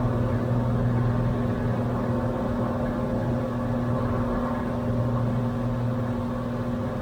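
Cessna 182's piston engine and propeller droning steadily at climb power, heard inside the cabin.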